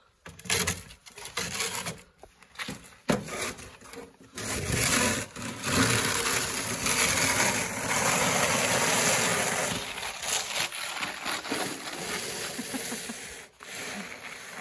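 Plastic snow shovel pushed along a concrete driveway, scraping through heavy snow that sticks to the concrete. A few knocks and steps come first, then one long continuous scrape about four seconds in, easing off somewhat after the middle.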